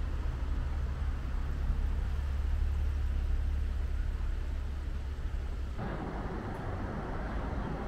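Outdoor street noise with passing traffic: a steady low rumble, then about six seconds in a broader hiss starts suddenly and holds.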